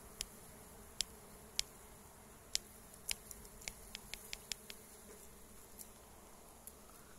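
Dwarf honeybees buzzing around their comb: a faint, steady hum of many bees, with scattered sharp clicks through it.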